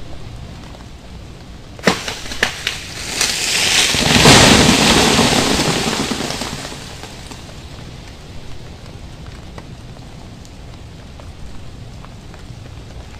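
Ice-coated tree limbs cracking sharply a few times, then a loud rushing crash of breaking ice and branches that swells and fades over about three seconds. Under it runs a steady rain-like patter of freezing rain and dripping ice.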